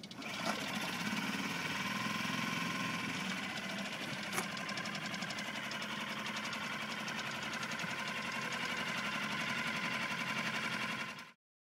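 Small LEHR propane-fuelled four-stroke outboard motor running steadily, its propeller churning the water. A single short click sounds about four seconds in.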